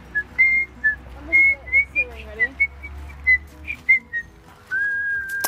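A person whistling: a run of short notes, then one long held note near the end. A sharp click sounds just before the end.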